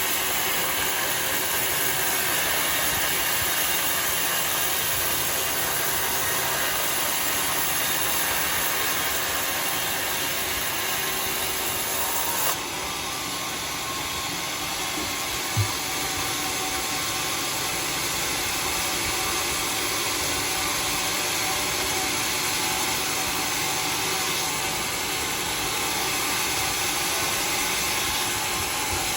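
Sawmill running steadily as it saws a bayur merah (red bayur) log, a dense continuous machine noise. The sound changes slightly about twelve seconds in, and a single short knock comes a few seconds later.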